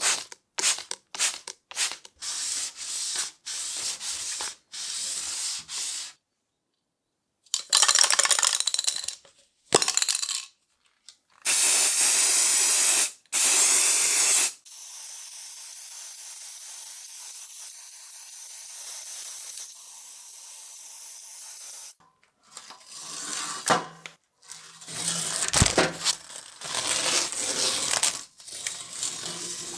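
Hand rubbing strokes on the game's parts, about one every half second, then, after a short silence, about three seconds of loud steady spraying hiss. A long, quieter steady hiss follows, and the rubbing strokes start again near the end.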